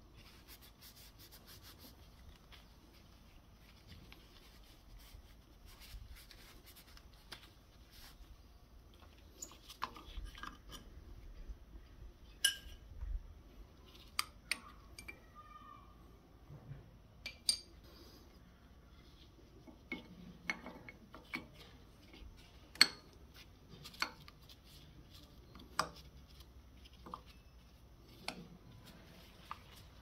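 Irregular light metallic clicks and clinks, spaced a second or a few seconds apart, from a motorcycle brake caliper and brake pads being handled and taken off the disc during a brake pad change.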